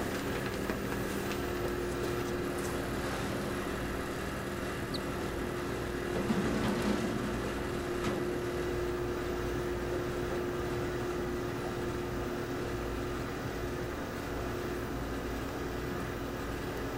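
Steady low machine hum with a few steady tones over a low rumble.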